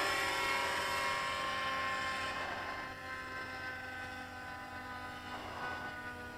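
JR Vigor 60 RC helicopter's glow engine and rotors running, a steady whine that fades as the helicopter flies off into the distance.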